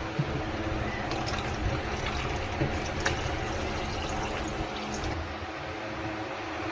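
Water running from a tap while dishes are washed, with a few light knocks of dishware in the first half.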